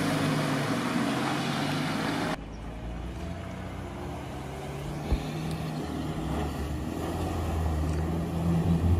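GAZ-69 off-roader's engine running as it wades through a flooded track, with loud water splashing that cuts off abruptly about two seconds in. Then the engine is more distant and grows louder near the end as the vehicle drives through deep water toward the listener. There is a single thump about halfway.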